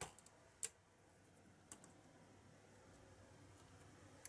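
A few light, sharp clicks of metal tweezers and fingers against a laptop's ribbon-cable connector and chassis as the cable is worked loose: two about half a second apart, then a faint one and another near the end, with near silence between.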